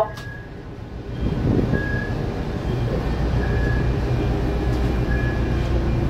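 Steady low rumble of ship engines, with a short high beep repeating about every second and a half.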